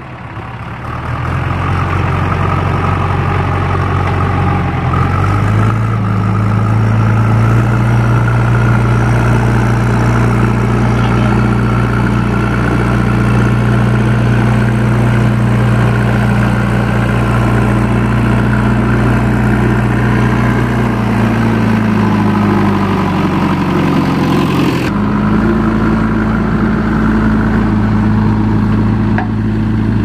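A JCB backhoe loader's diesel engine running under load as it pushes and carries earth. It revs up a few seconds in and holds a steady note, sags later on, then jumps abruptly back to a steady note.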